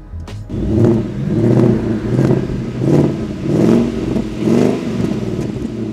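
Ford Mustang Mach 1's 5.0-litre V8 revved in about six quick throttle blips, each rising and falling, then settling back toward idle near the end. The active exhaust is set to Sport mode.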